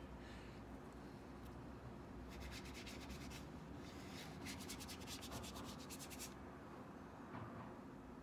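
Faint paintbrush strokes scrubbing watercolor paint across paper, in two or three short spells of quick back-and-forth rubbing.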